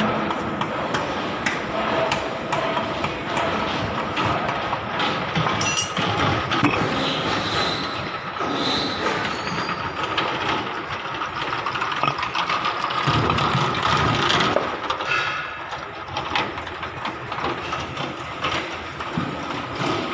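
Hand tools working on metal: irregular clicks, ratchet-like clicking and light knocks over steady background noise.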